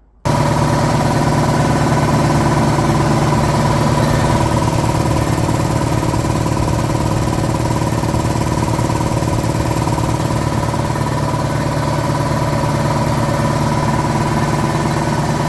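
Converted air compressor running: a Harbor Freight twin-stage, belt-driven oil-sump pump driven by a 5 hp 230 V electric motor, pumping up a 60-gallon tank. It gives a loud, steady, rapid pulsing with a high whine that holds at an even pitch, beginning abruptly just after the start.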